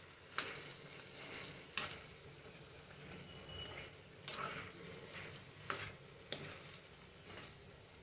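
Metal spoon stirring cubed potatoes in a steel kadai: quiet scrapes and clinks against the pan at irregular intervals, about six in all, over a faint sizzle of the potatoes cooking.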